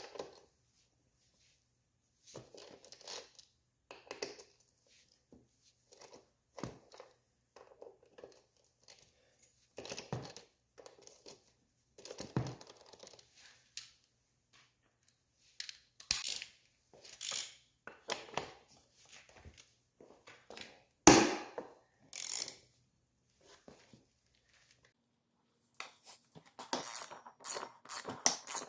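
Wrench and hand-tool work on the front wheel hub and axle of an ATC250R three-wheeler while its nuts and axle are loosened: irregular metal scrapes and clicks with pauses between them. There is one sharp knock about two-thirds of the way through and a quicker run of clicks near the end.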